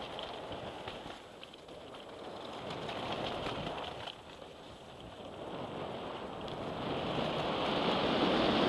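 Rush of wind on the microphone and a mountain bike's tyres rolling fast over a dirt and gravel trail, with a few sharp clicks and rattles from the bike. It grows louder toward the end as the bike picks up speed.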